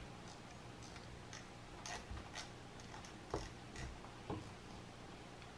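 Faint room tone with a few soft, separate clicks and taps from fingers working the Malahit-DSP SDR receiver's touchscreen and knobs. The receiver's speaker stays silent, a sign of the unit's audio fault.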